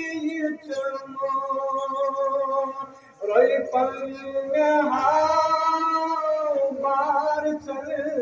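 A man singing a Kashmiri naat unaccompanied, in long held notes that glide and waver, with a short break for breath about three seconds in.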